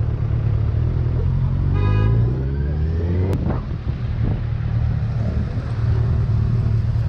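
Motorcycle running on the road with a steady low rumble. About two seconds in, an engine note rises briefly as it accelerates, and a short sharp click follows about a second later.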